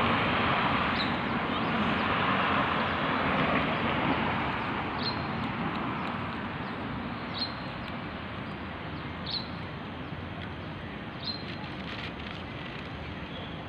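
A car passing on the road, its tyre and engine noise fading away over the first several seconds and leaving a steady background hum. A bird gives short, high single chirps about every two seconds.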